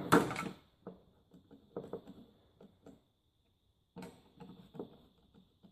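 Light irregular clicks and taps of a handsaw being handled as its handle is worked off the replaceable blade, beginning with a sharper knock.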